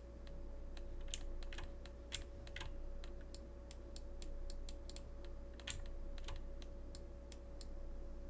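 Computer mouse buttons clicking in quick, irregular runs, with a few louder clicks, over a steady faint electrical hum.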